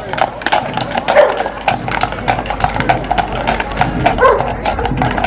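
Hooves of mounted police horses clip-clopping on pavement, many quick irregular strikes. A few short whining cries sound over them, about a second in and again near the end.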